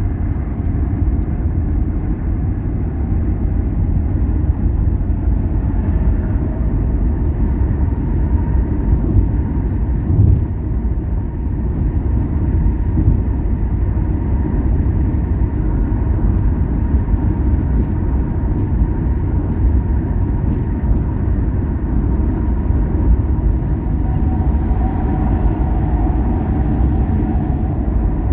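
Car driving along a road: a steady low rumble of engine and tyre noise, with a faint thin hum running through it.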